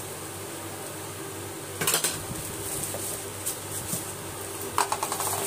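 Stainless steel mixer-grinder jars and lids clinking and knocking as they are handled and unwrapped from plastic bags, with a sharp clatter about two seconds in and a few lighter knocks later.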